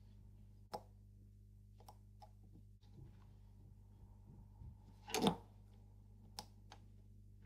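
Small metal clicks and taps of watchmaker's tools and watch parts being handled on the bench, a few scattered ticks with one louder, longer click a little after five seconds, over a steady low hum.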